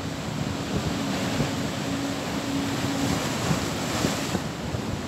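Storm surf breaking and washing over rocks, a dense rushing wash that swells through the middle and eases near the end, with wind buffeting the microphone.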